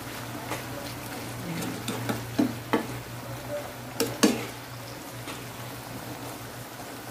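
A spatula stirring long beans and fried tofu in a frying pan, with scattered knocks and scrapes against the pan. A soft steady sizzle runs underneath as the dish simmers in its sauce.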